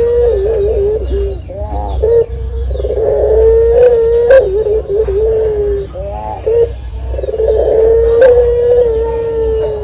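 Caged collared dove (puter) cooing in long held notes: three drawn-out steady coos, each two to three seconds long, with short broken coos between them, over a low background hum.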